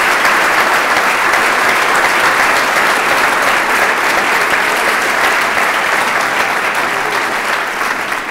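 Audience applauding, a steady dense clapping of many hands.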